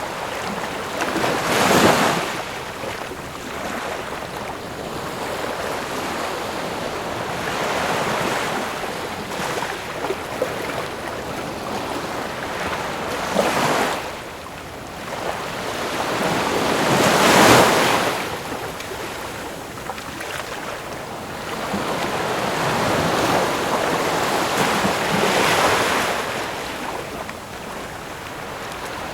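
Ocean waves breaking on a shore: a continuous wash of surf that swells and falls, with four bigger waves crashing over the stretch.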